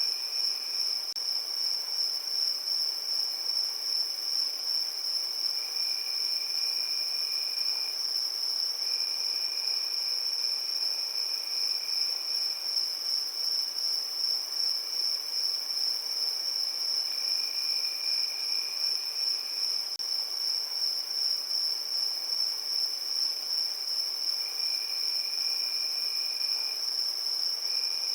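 Crickets chirping in a continuous high-pitched trill, with a second, lower trill that starts and stops every few seconds.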